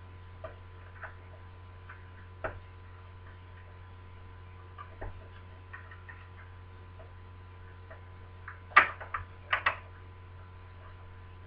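Lever deadlock being picked: scattered faint metallic clicks and taps of the picking tools on the levers inside the lock, with a louder cluster of clicks about nine seconds in, over a steady low hum.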